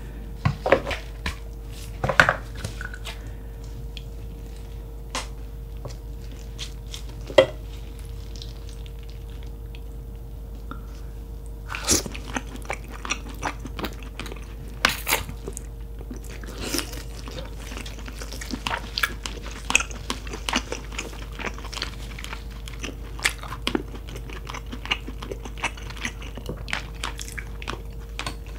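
Close-miked eating of a boiled giant lobster: biting and chewing the claw meat, with scattered sharp cracks and clicks from the shell being handled, over a faint steady hum.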